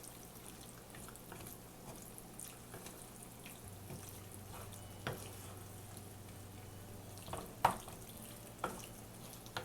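Chicken pieces being stirred into mint masala in a pan: a faint wet mixing noise with a few knocks of the spoon against the pan, the loudest a little before the end, over a steady low hum.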